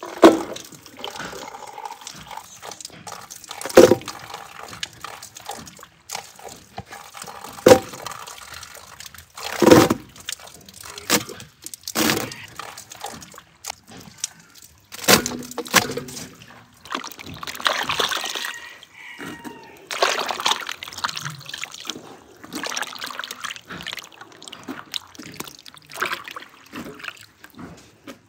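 Water sloshing and trickling as strawberries are washed by hand in a stone basin fed by running water. Every few seconds there is a sharp splash or knock as handfuls of berries are dropped.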